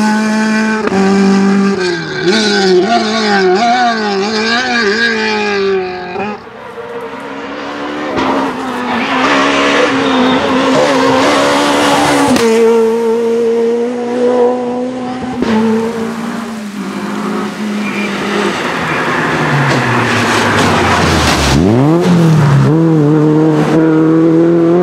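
Rally cars driven flat out on a stage, one after another: engines revving high and dropping through gear changes and lifts, with some tyre squeal. Near the end one engine's pitch falls deeply, then climbs again as it accelerates away.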